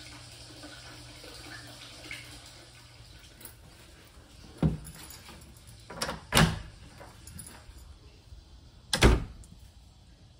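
Water trickling faintly into a stone bath at first, then a run of sharp knocks from a wooden door and its metal lock knob as it is unlocked and worked, the loudest knock near the end.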